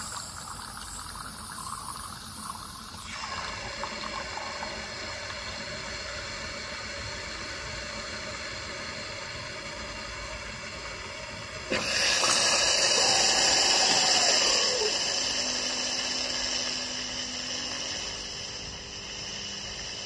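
Gluons fully automatic coffee machine heating and dispensing milk for a hot cappuccino, with a steady pump hum and liquid hiss. About twelve seconds in the hiss grows much louder, then it eases off over the last few seconds.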